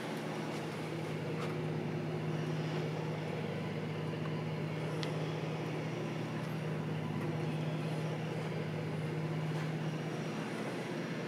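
Steady low mechanical hum with a faint hiss, holding one pitch without change, with a single faint tick about five seconds in.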